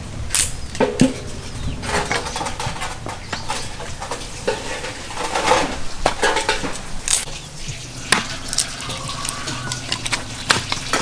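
Firewood being split into kindling on a wooden block: a run of sharp, irregular knocks, with sticks and charcoal clattering in a clay stove.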